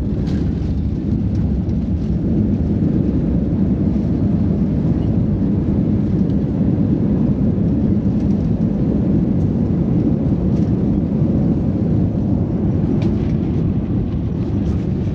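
Steady low rumble of an airliner's engines and rushing air, heard from inside the passenger cabin.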